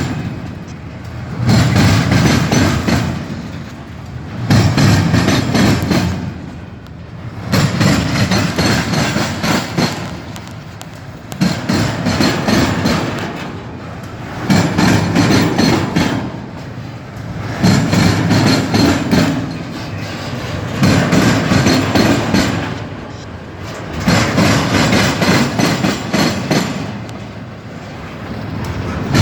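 Train-style air horns blasting over and over, each blast lasting a second or two, with a new one every two to three seconds.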